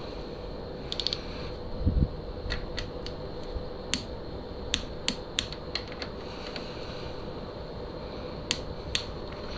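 Torque wrench on the bottom fork-clamp pinch bolts being tightened to 20 Nm: scattered sharp metallic clicks, with a dull knock about two seconds in and two sharp clicks near the end.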